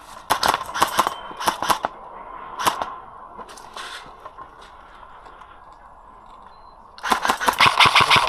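Airsoft guns firing: scattered single shots and short bursts in the first two seconds, a couple of isolated shots a little later, then a fast, sustained full-auto burst over the last second or so.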